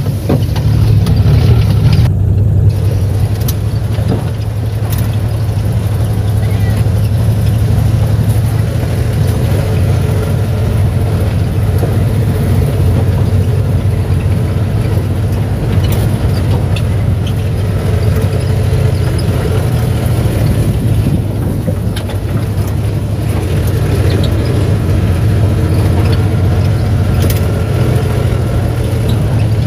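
Suzuki multicab's F6A three-cylinder engine running while driving, heard from inside the cab as a steady low drone with tyre and road noise. There are a few short knocks and rattles from the body over a bumpy dirt track.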